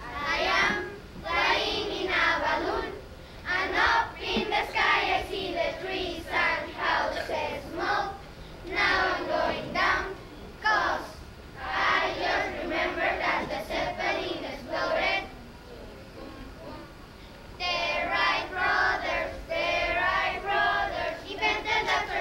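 A group of children singing together in unison, phrase after phrase. They break off for about two seconds past the middle, then carry on.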